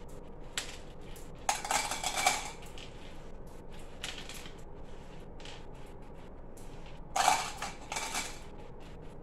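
Small hard candies, Skittles, dropped and rattling into clear drinking cups, with two loud bursts of clatter about a second and a half in and again near the end, and light scattered clicks between.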